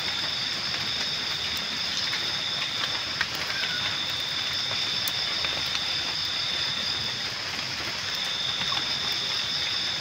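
Wood campfire crackling and hissing, with small scattered pops, over a steady high-pitched chirring of night insects.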